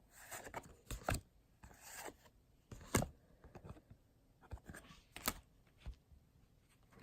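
Pokémon trading cards being handled and laid out, rustling and sliding, with a few sharp taps as cards are set down.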